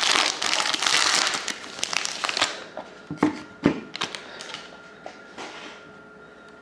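Plastic wrapping crinkling and tearing as a sealed pack of trading cards is opened, dense for about two and a half seconds, then a few scattered sharp crackles and clicks that die away.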